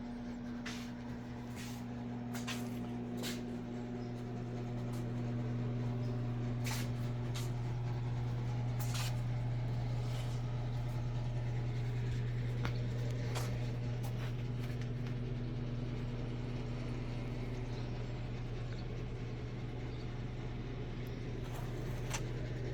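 A steady low mechanical hum, with scattered sharp clicks and knocks over it.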